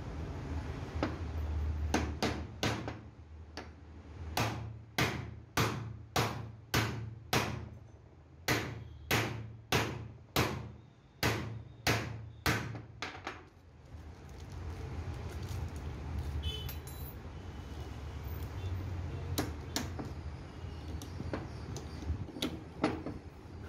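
Hammer blows on the steel bearing cup of a truck driveshaft universal joint, driving it into the yoke: a run of about twenty sharp metal strikes at about two a second for some ten seconds, then a few more blows near the end.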